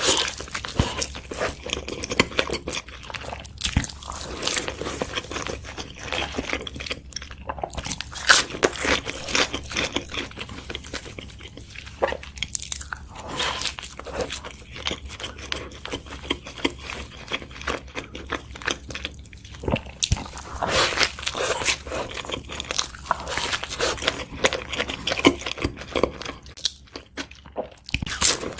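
Close-miked ASMR eating: a crispy fried chicken burger crunching under repeated bites and wet chewing, with dense irregular crackles throughout.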